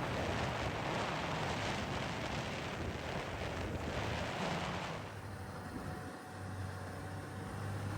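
Rough rumbling wind noise buffeting the microphone, which drops away about five seconds in, leaving a steady low engine drone from a motor vehicle.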